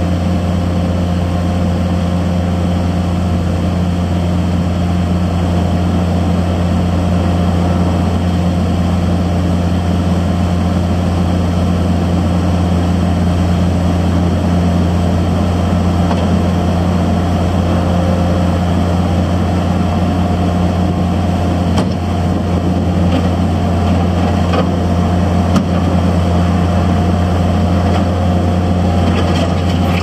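Takeuchi TL126 compact track loader's diesel engine running steadily, with a deep, even hum. A few light knocks come in the last third.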